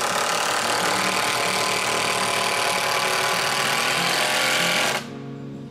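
A handheld power tool runs steadily for about five seconds while working on the wooden solar-panel frame, starting and stopping abruptly, with background music underneath.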